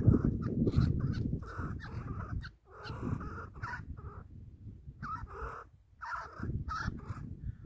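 Chukar partridges calling: runs of short, harsh clucking notes in several bursts, over a steady low rumble.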